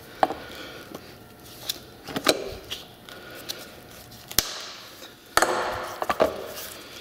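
Plastic case of a vehicle charcoal (EVAP) canister being cut and pried apart with pliers: scattered clicks and cracks, a sharp snap about four and a half seconds in, then a crackling rattle as the section breaks away.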